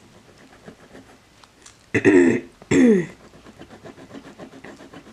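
A woman clearing her throat, two short loud sounds about two seconds in. Around them, faint scratching as a silver chain is rubbed on a black testing stone.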